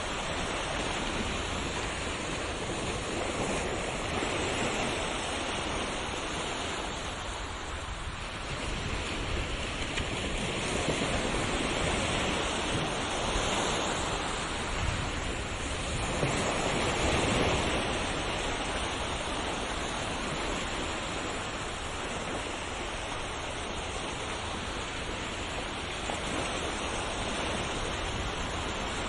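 Ocean waves breaking and washing on a shore, a continuous rushing surf that swells and eases, with the loudest surges about halfway through.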